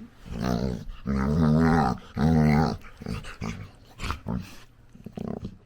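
Labrador puppy growling in play, three long, loud burp-like growls in the first three seconds, followed by softer short growls and one brief one near the end.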